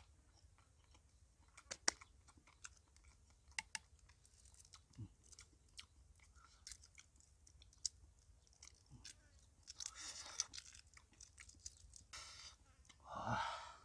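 Shells of cooked eggs being cracked and peeled by hand: scattered small crackles and clicks. There is a brief voice sound near the end.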